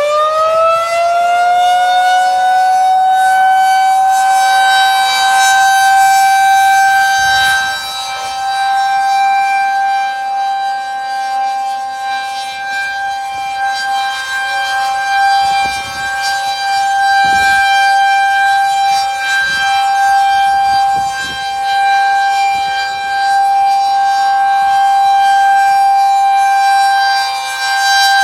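Federal Signal 2001-SRNB electromechanical tornado siren sounding its steady Alert tone. It finishes winding up in the first second, then holds one steady pitch with strong overtones. The sound swells and fades every few seconds as the rotating siren head turns.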